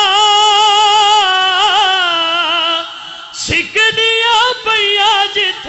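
A man's high voice singing a devotional Punjabi qasida through microphones, with no instruments: one long held note with a wavering ornament for about three seconds, a short breath, then shorter rising and falling phrases.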